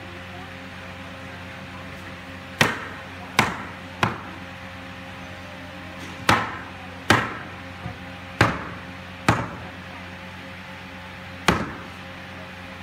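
A hammer striking a wooden door frame: eight sharp blows in uneven groups, each with a short ring.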